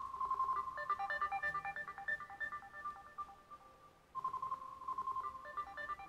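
A short electronic tune, a held high note followed by a quick run of higher notes, playing twice and starting over about four seconds in, in the manner of a repeating phone ringtone.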